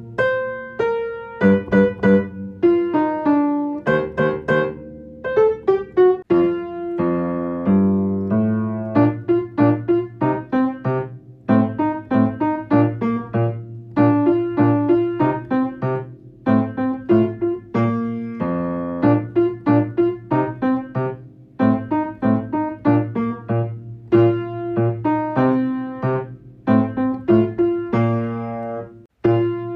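Solo piano playing a lively accompaniment of struck, quickly decaying notes, with a run of falling notes about seven seconds in and a short break just before the end.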